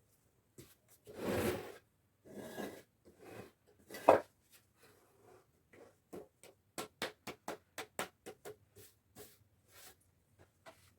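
Knocks, taps and scraping from wooden workpieces being handled, with no machine running: a scrape early on, one loud knock about four seconds in, then a quick run of sharp taps.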